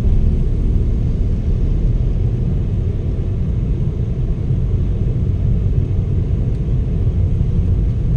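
Steady low rumble of a car driving along a city street, heard from inside the car: engine and tyre noise.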